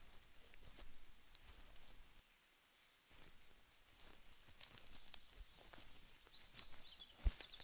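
Faint outdoor ambience: a low hiss with short high chirps and scattered light clicks, and a single sharp knock near the end.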